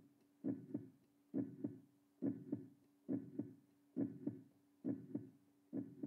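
Heartbeat-like sound: slow paired thuds, lub-dub, repeating steadily a little faster than once a second, over a faint steady hum.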